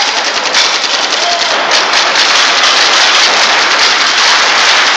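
Many paintball markers firing rapidly at once: a dense, continuous volley of pops, too fast to pick out single shots after the first second or so.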